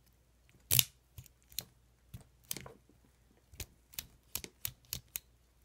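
Small metal clicks of a key working a freshly reassembled ASSA Twin 6000 lock cylinder, about a dozen sharp clicks with the loudest about a second in.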